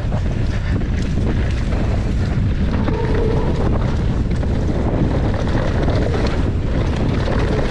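Wind buffeting the camera microphone, with the mountain bike rattling and chattering over a rough dirt trail, ridden fast with no braking.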